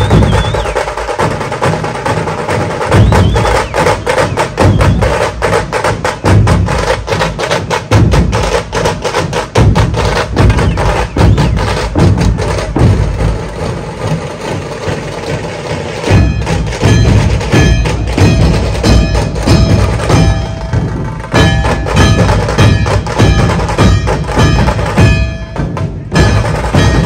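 Dhol tasha ensemble playing a rhythm: heavy dhol beats with rapid tasha stick strokes over them. From about two-thirds of the way in, a ringing metallic layer sounds over the drumming.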